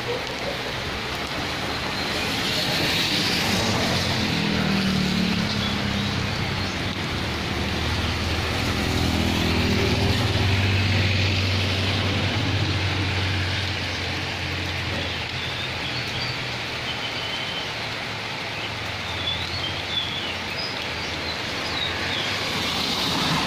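Steady rain falling during a sunshine shower, with a motor vehicle passing on the wet road: its engine hum builds, is loudest about ten seconds in, then fades. A few faint high chirps come near the end.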